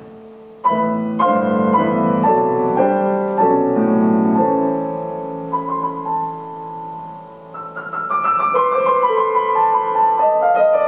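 Grand piano playing solo. A held note is fading when a loud chordal passage strikes in just under a second in and slowly dies away. After a lull, a quicker passage in the higher register begins near the end.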